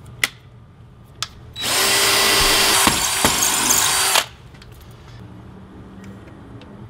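Cordless drill/driver on a low torque setting driving a Tapcon masonry screw through a TV mount's wall plate into a concrete block wall, running steadily for about two and a half seconds after two short clicks.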